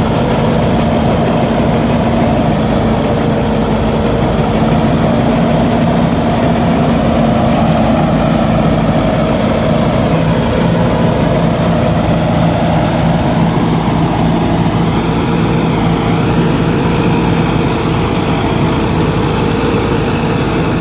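Rice combine harvester running steadily: a loud, even engine drone with a constant high whine from the machinery.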